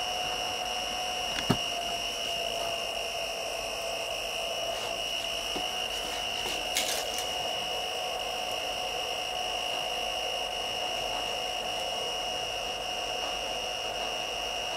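Powered-on JGAurora A-3 Prusa i3 3D printer idling in change-filament mode: a steady high electrical whine with fan hum. Hands handling the filament at the extruder make a sharp click about one and a half seconds in and a short crackle near seven seconds.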